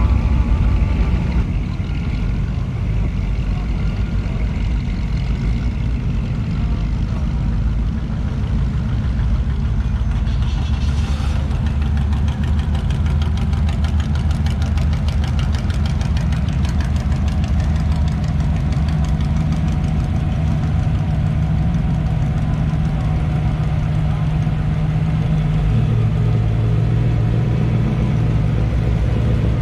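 Street rod and hot rod engines running at low speed as the cars roll past in a slow line. The engine note is steady and deep, and a different, lower engine note comes in over the last third.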